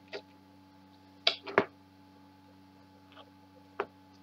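A handful of short sharp clicks and knocks as a pizza cutter cuts a small piece from a chocolate pizza with a crisp cookie base, two close together about a second and a half in and another near the end, over a steady faint hum.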